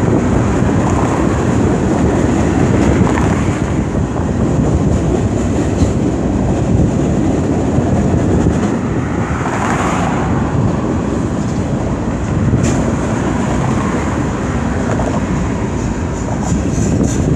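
Freight train autorack cars rolling past on steel wheels, a steady loud rumble of wheels on rail. About ten seconds in there is a brief swell of higher-pitched sound, and a little later a single sharp click.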